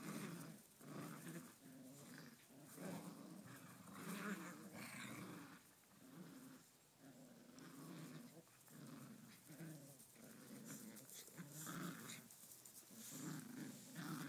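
Dogs growling in play during a tug-of-war over a toy, in irregular rumbling bursts one after another.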